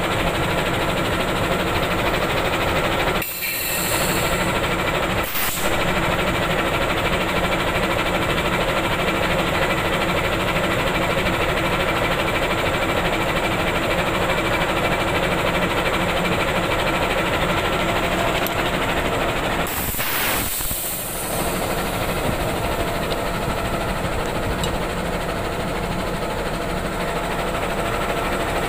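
Diesel locomotive engine running steadily at idle close by during refuelling. A brief hiss comes about three seconds in and another about twenty seconds in.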